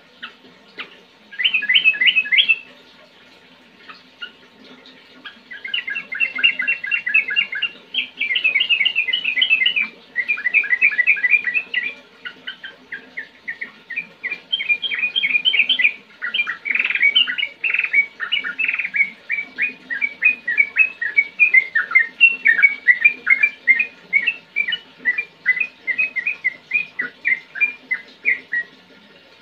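Yellow-vented bulbul singing in bursts of quick, clear, chattering notes. From about halfway through, it runs into a long unbroken string of repeated notes that ends just before the close.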